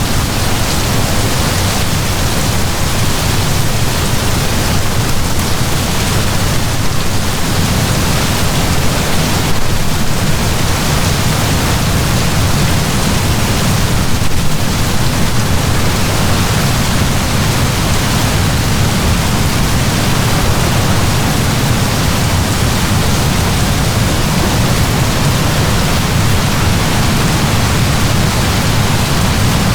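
Heavy rain falling steadily as a dense, even hiss with a deeper rumble underneath.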